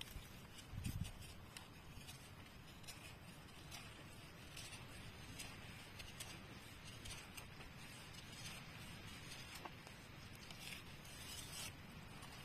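Knife blade shaving strips off a wooden stick: faint, irregular scraping strokes, with a soft low thump about a second in.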